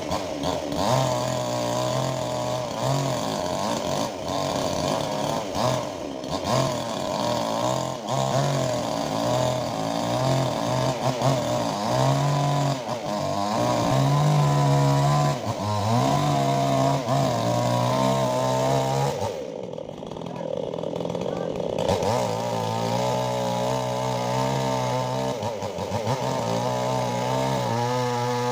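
Stihl chainsaw running while cutting mango wood, its engine note rising and sagging under load. About twenty seconds in it briefly eases off, then revs back up.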